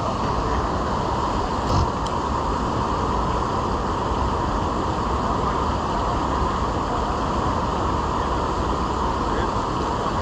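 Steady rush of river water spilling over a low concrete weir, with a single brief knock about two seconds in.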